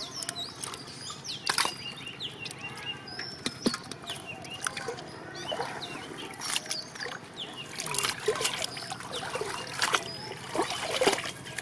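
Splashing and sloshing in shallow muddy water as hands work a fishing net through it, with irregular small splashes and clicks.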